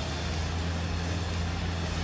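Stump grinder running steadily: a constant low engine drone under a continuous wash of grinding noise.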